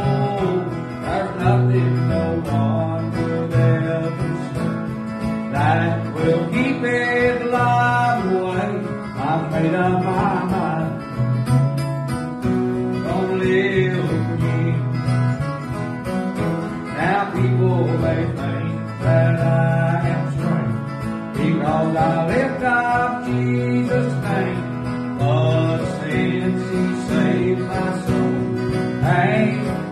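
Acoustic guitar strummed as accompaniment to a country-style gospel song, with a man's singing voice over it.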